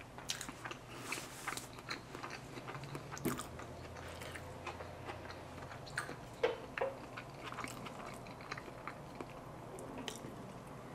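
A person chewing and biting food close to the microphone: wet mouth clicks and crunches, with a louder pair of chews about six and a half seconds in. Near the end, a sip from a soda can.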